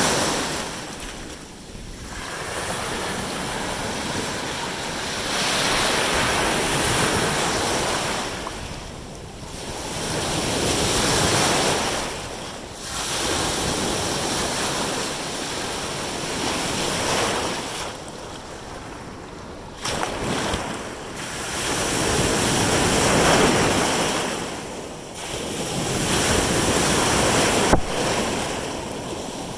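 Ocean surf washing up the beach in surges that swell and fall back every few seconds, with wind buffeting the microphone. A single sharp knock comes near the end.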